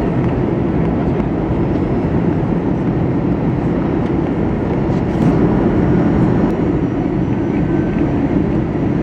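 Airbus A320 heard from inside the passenger cabin: a steady low rumble of engine and airflow noise, swelling slightly about five seconds in.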